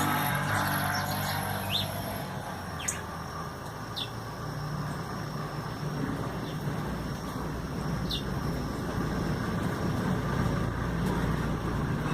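Steady low rumble of road traffic with short, high bird chirps every few seconds, about five in all, over a thin steady high tone.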